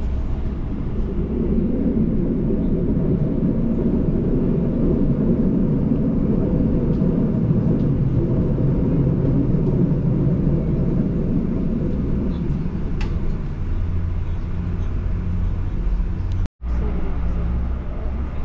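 Steady rumble of a regional train running along the track, heard from inside the carriage. About two-thirds of the way through it settles into a lower, steadier hum, and it breaks off for an instant near the end.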